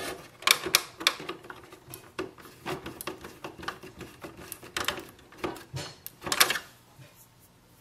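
Irregular plastic clicks, taps and rattles as flat ribbon cables are pushed into their connectors inside an opened Epson ET-2720 printer with the tip of a screwdriver.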